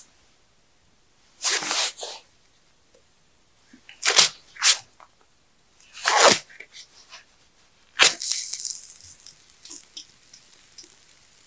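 Metal meat skewers being laid and shifted over the campfire's coals: several short scraping, rustling bursts about every one to two seconds, the last, about eight seconds in, trailing off in a brief hiss.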